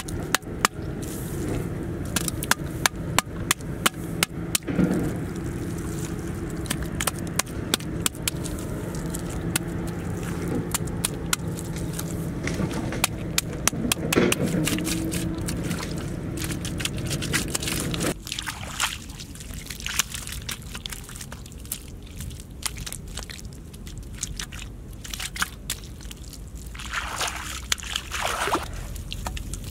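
Wet mud squelching and slapping as hands pat and smooth it into shape, many short wet smacks. A steady low hum runs underneath and stops about two-thirds of the way through.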